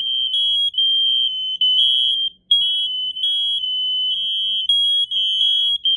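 Several household smoke alarms sounding at once, loud. Their shrill beeps sit at two slightly different pitches and overlap out of step, so the sound hardly breaks.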